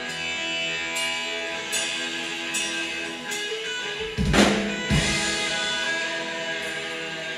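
Live rock band playing an instrumental passage: electric guitar chords ringing over drums that keep a steady beat. About four seconds in there is a loud hit, with a smaller one just after.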